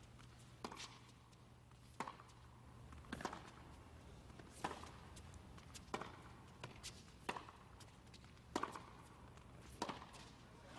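Tennis ball being struck back and forth in a baseline rally: eight sharp racket hits, about one every 1.3 seconds, over a steady low hum.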